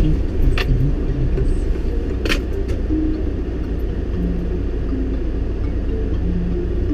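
Car engine idling with a steady low rumble. Two short sharp clicks come about half a second in and just after two seconds.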